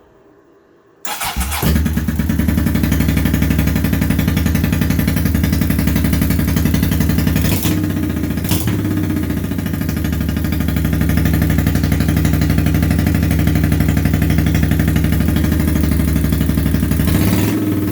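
1983 Honda Shadow VT750C's liquid-cooled V-twin starting about a second in, catching almost at once, then running loud and steady. This is the engine's first start after a rebuild with a new front cylinder and a fresh gasket kit.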